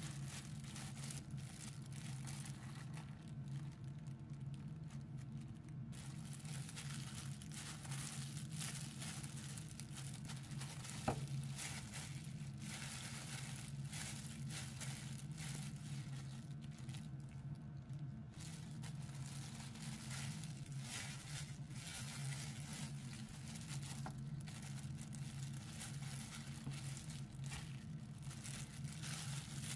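Disposable plastic gloves crinkling and rustling as hands squeeze and roll sticky rice into a ball, over a steady low hum. A single sharp click about eleven seconds in.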